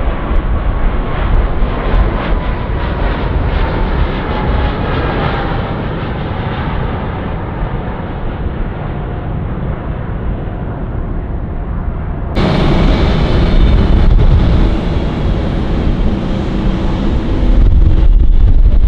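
Jet engines of a Boeing 777 climbing out after takeoff, a loud roar with a whine that slowly falls in pitch as the airliner moves away. About twelve seconds in, it cuts to a louder, steady jet rumble with a low hum from a taxiing Boeing 787.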